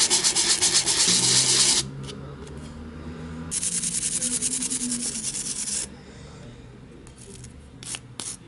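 Baked polymer clay cube being sanded by hand, rapid back-and-forth scratching strokes in two bouts, the first stopping about two seconds in and the second starting a little later and stopping about six seconds in. The sanding smooths the surface and takes off fingerprints.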